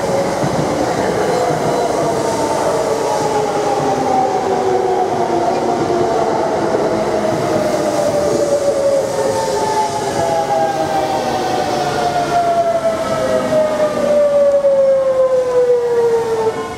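JR West limited-express electric train rolling into the station and slowing. Its motor whine falls steadily in pitch through several parallel tones, over the rumble of wheels on the rails, and cuts off abruptly at the end.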